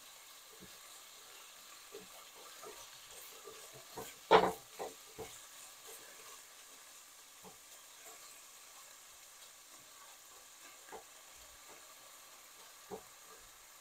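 Chopped onion, carrot and bell pepper sautéing in olive oil in a stainless steel pan, with a faint steady sizzle. A silicone spatula stirs them, scraping and knocking against the pan now and then, with the loudest knock about four seconds in.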